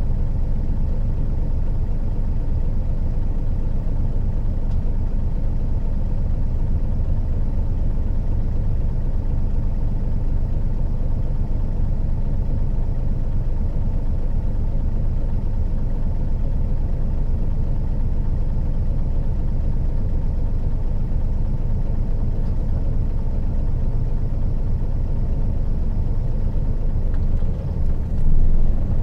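Isuzu Gala III coach's 12PE1 V12 diesel engine running steadily as a low, even drone. Near the end the loudness dips briefly, then rises.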